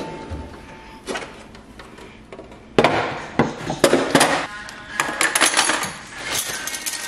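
Wooden cutlery organiser trays knocking against the wood of kitchen drawers as they are set in, followed by metal utensils clinking and clattering into a tray, over background music. The loudest knocks come from about a third of the way in to past the middle.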